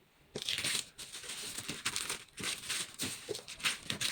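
Shoe packaging crinkling and rustling in irregular bursts as a pair of shoes is handled and unwrapped, starting about half a second in.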